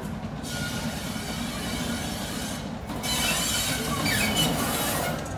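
Class 33 diesel locomotive's Sulzer eight-cylinder engine running low as it rolls slowly towards the camera, with its steel wheels squealing and hissing on the track from about half a second in, louder from about three seconds in.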